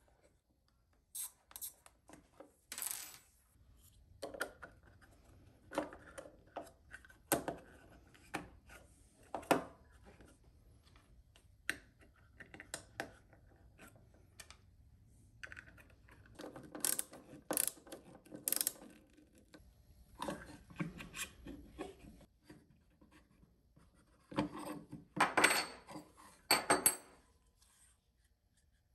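Hands assembling a small diode laser mount: irregular clicks, taps and rubbing as small parts and acrylic panels are fitted to the housing, with a burst of louder clacks near the end.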